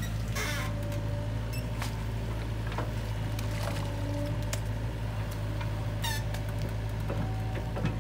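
Hitachi compact excavator's diesel engine running steadily as the machine swings its boom and works the bucket in wet mud, with scattered short squeaks and clicks over the engine hum.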